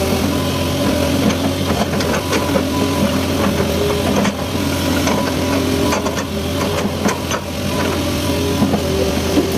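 Excavator's diesel engine running steadily, with scattered short clanks and knocks from the machine at work.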